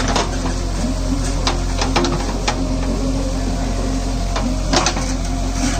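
A heavy diesel engine runs steadily, with sharp metallic knocks and clanks at irregular intervals, about six times, from the machinery working.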